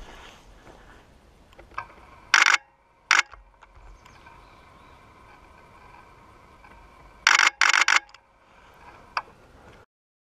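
Camera shutter firing in short rapid bursts: two bursts a couple of seconds in, then three close together about halfway through, over a faint steady hum.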